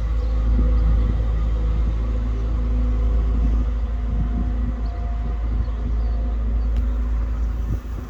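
Train passing close by: a loud, steady low rumble with humming tones over it.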